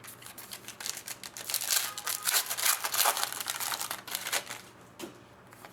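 Crinkling and rustling as packs and baseball cards are handled, with quick papery clicks, loudest in the middle and dying away about a second before the end.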